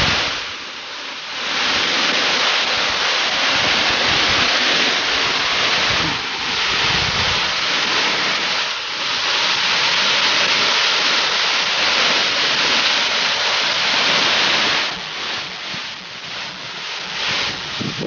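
Waterfall pouring onto rocks and a shallow pool: a loud, steady rush of falling water, briefly dipping a few times and becoming more uneven and slightly quieter near the end.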